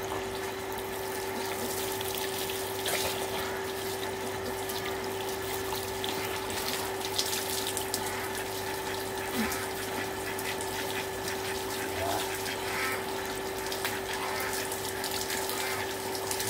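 Water gushing from a hose and splashing over a person's head and body onto the ground, with a steady hum underneath.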